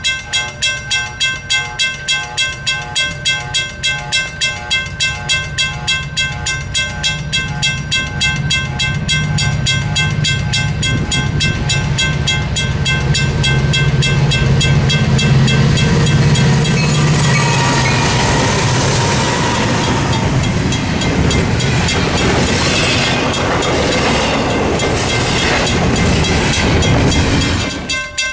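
Railroad grade-crossing bell dinging about twice a second. Under it the rumble of an approaching diesel train builds, then the train passes with loud, noisy wheel-and-rail sound. The sound cuts off suddenly near the end.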